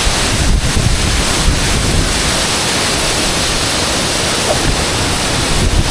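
Waterfall rushing: a loud, steady, even hiss of falling water with a low rumble underneath.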